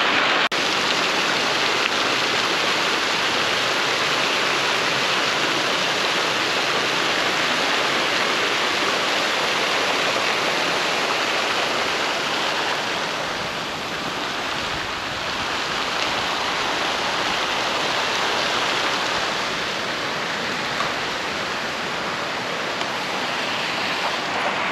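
Fountain water splashing, a steady rushing hiss.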